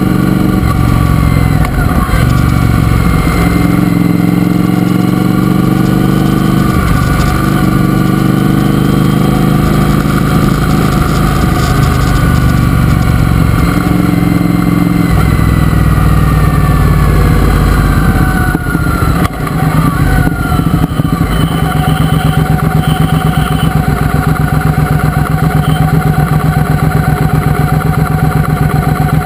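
Triumph Speedmaster's parallel-twin engine on the move, pulling through the gears with several steps in pitch. About two-thirds of the way in it slows, and it ends in a steady, pulsing idle with the bike at a standstill.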